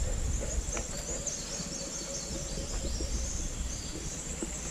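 Insects calling in garden vegetation: a steady high buzz with short chirping phrases repeating above it, over a low rumble.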